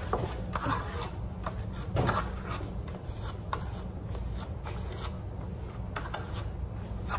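Steel plastering trowel scraping and spreading orange Venetian plaster base over a smooth board in short, irregular strokes.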